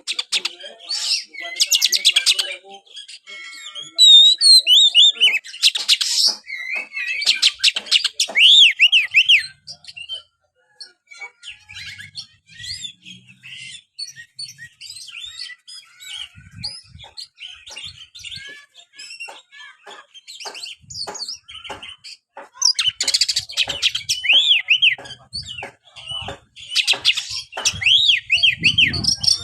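Oriental magpie-robin (kacer) singing in loud bursts of rapid chattering trills and quick up-and-down whistles, with softer clicking calls in the quieter spell between them.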